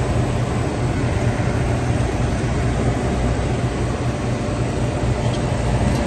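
Reach-in bottle cooler's newly fitted condenser fan motor spinning freely, with a steady low hum and the even rush of air over the compressor.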